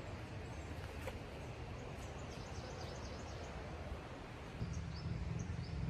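Quiet, steady outdoor hiss with small birds giving short, high chirps, several of them in the second half. A low rumble on the microphone grows louder near the end.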